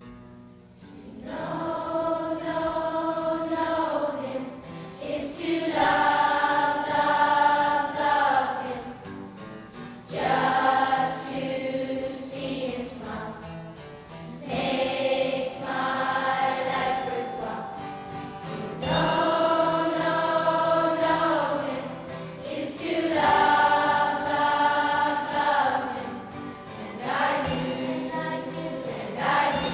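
Choral music: a group of voices singing long held phrases, each a few seconds long, with short breaks between them.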